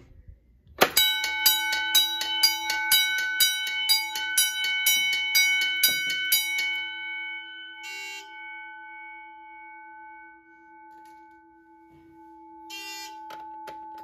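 Fire alarm bell set off from a manual pull station, struck rapidly and ringing loudly for about six seconds. The strikes then stop and the bell keeps ringing on, with two short bursts of strikes later on.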